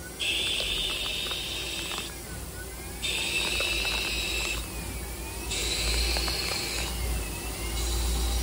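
CNC lathe running a G71 roughing cycle, the tool taking repeated passes along the bar under coolant. A high steady hiss and whine sounds during each pass and drops away briefly between passes, four passes in all, over a steady low machine hum.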